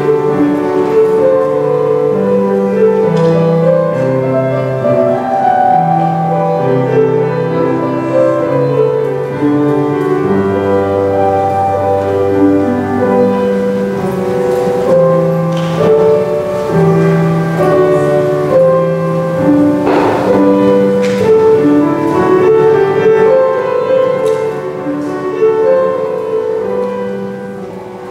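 Slow instrumental music on a keyboard instrument: a melody over held chords and low bass notes, with a few soft knocks midway.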